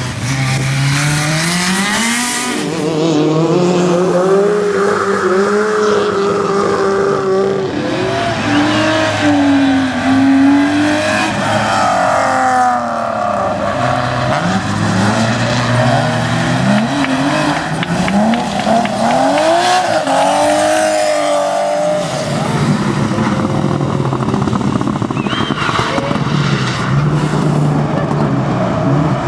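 Rally car engine working hard, its pitch climbing and dropping again and again through gear changes and lifts for about twenty seconds, then settling to a steadier, lower note near the end.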